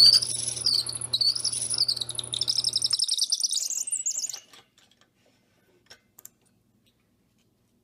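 A drill press spinning a pen barrel trimmer as it trims the ends of pen blanks: a wavering, high-pitched squeal of the cutter against the wood over a steady motor hum. The hum stops about three seconds in, and the squeal dies away a second or so later, leaving near silence with a couple of faint clicks.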